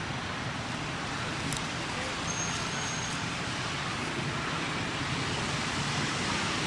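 Steady outdoor background noise, a continuous hiss and low rumble, with a brief faint high tone about two and a half seconds in.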